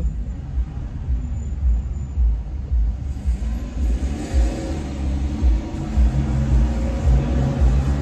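Car driving, heard from inside the cabin: a low, steady engine and road rumble. From about three seconds in, the engine note becomes clearer and rises a little as the car pulls away.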